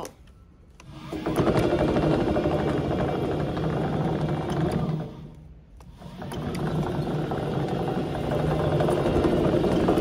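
Remote-control tracked chassis driving on its brushless DC gear motors and rubber tracks, running at a steady speed under cruise control. It runs for about four seconds, stops briefly, then runs again for about four seconds.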